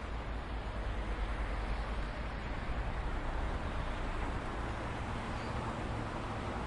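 Road traffic noise: a steady rumble and hiss of vehicles with no single pass-by standing out.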